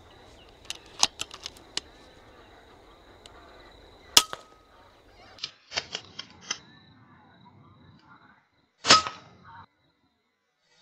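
Two sharp cracks from an FX Impact M3 .22 PCP air rifle, about four and nine seconds in, the second louder, each with a brief ring after it. Light clicks of handling come before and between the cracks.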